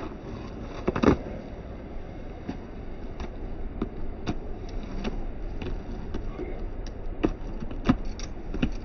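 A horse's hooves thudding irregularly on packed sandy ground as it bucks and plays, the loudest thud about a second in, over a steady low rumble.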